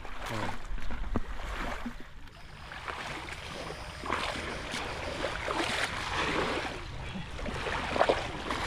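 Shallow muddy water splashing and sloshing irregularly, with scattered short splashes, louder in the second half.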